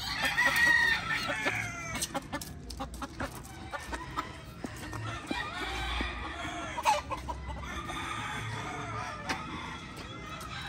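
Gamecocks crowing and clucking: a loud call in the first two seconds, then more calls through the middle.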